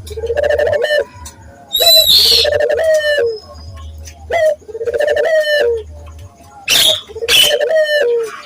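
Puter dove cooing over and over in short, rhythmic phrases, with sharper, higher bird calls cutting in about two seconds in and again near the end.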